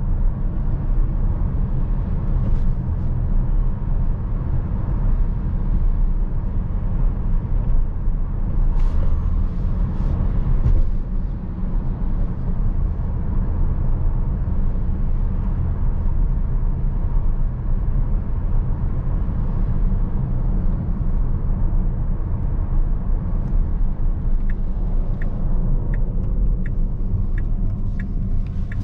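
Steady low road and tyre rumble of a 2023 Tesla Model S Long Range cruising, with no engine note from its electric dual-motor drive. Near the end a light, regular ticking starts, about one and a half ticks a second.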